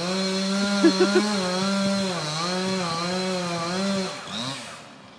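Two-stroke chainsaw cutting into a tree at high revs, its pitch wavering and dipping as it works, with a few sharp spikes about a second in; near the end the engine drops back off.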